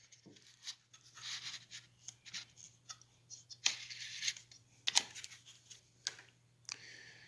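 Small handling noises of chainsaw parts being fitted during reassembly: scattered scraping and rubbing with a few sharp clicks, over a faint steady hum.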